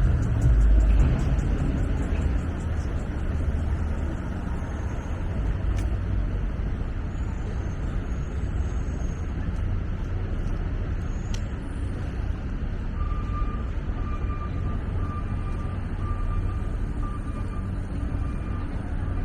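Downtown street traffic with a steady low rumble, heaviest in the first couple of seconds as a vehicle goes by. From a bit past halfway, a reversing alarm beeps repeatedly at an even pace.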